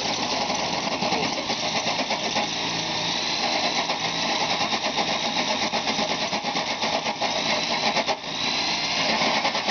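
Corded electric drill driving a hole saw into an FJ Cruiser's front fender, running steadily under load with a high whine, with a brief break near the end. The saw is cutting with the wobble and skipping the driller remarked on.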